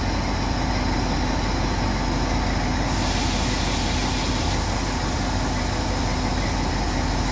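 FS D.345 diesel locomotive idling while standing, a steady low engine hum. About three seconds in, a steady high hiss comes in on top of it.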